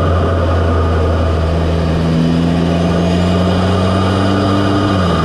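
Audi S3's turbocharged 2.0-litre four-cylinder running steadily, probably at idle, heard right at its APR carbon-fibre open intake cone filter: a steady low hum with a hiss of induction air over it. The pitch dips slightly near the end.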